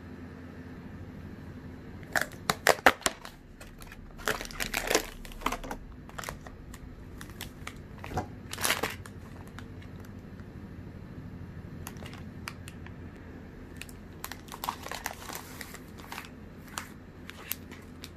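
Plastic packaging and the cardboard box of a candy-making kit being handled and unpacked, crinkling and crackling in several short spells with pauses between.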